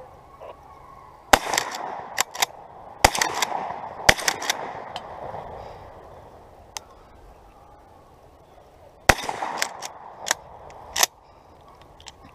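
A shotgun fired several times in two quick volleys, the first starting about a second in and the second several seconds later. Lighter sharp clacks fall between the shots.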